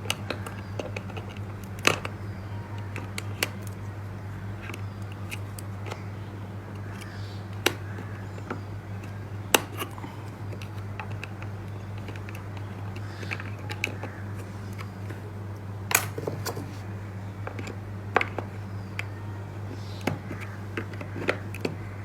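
Irregular sharp plastic clicks and handling sounds as plug-in terminal connectors are worked off a weight transmitter, over a steady low hum.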